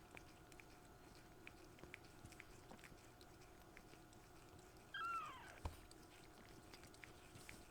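A kitten gives one short meow, falling in pitch, about five seconds in, followed right away by a soft thump. Faint small clicks and rustles of the kittens moving sound around it.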